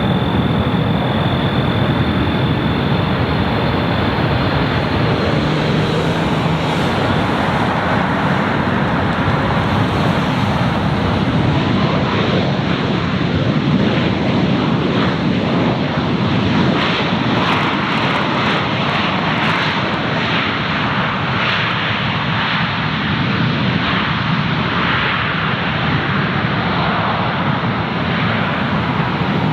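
Airliner jet engines running, a loud, steady noise that holds without a break.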